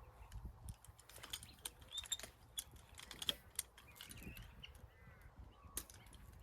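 Faint, irregular metallic clicks and ticks of barbed wire being tensioned with wire strainers, the loudest about two and three seconds in. Faint bird calls come through in the second half.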